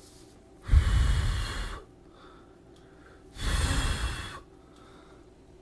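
Two heavy breaths right on the microphone, each about a second long and about three seconds apart.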